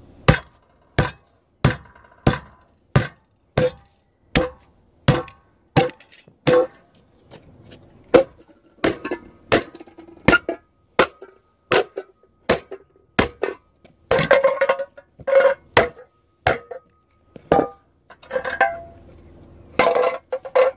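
Old brass oil lamp parts being beaten flat on concrete: a steady run of sharp metal impacts, about one every two-thirds of a second, each with a short ring. Louder, denser crunching clatters come about two-thirds of the way through and again near the end as the metal crumples.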